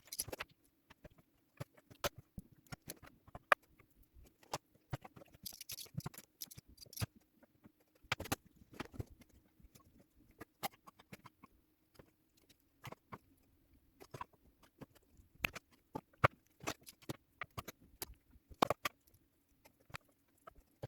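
Irregular small clicks and taps of hands working on two phone charger cables to join them into one, over a faint steady hum.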